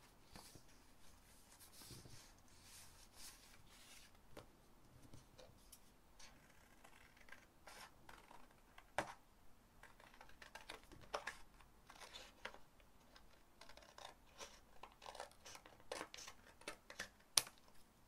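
Quiet paper rustling as sheets are handled, then scissors snipping through a paper cosmetics leaflet in a run of short, crisp cuts, the sharpest about nine seconds in and near the end.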